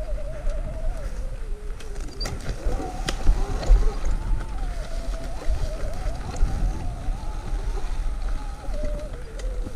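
Sur-Ron electric dirt bike's motor whining, the pitch wavering up and down with the throttle, over a low rumble of the bike working across rough ground, with a few sharp clicks and knocks.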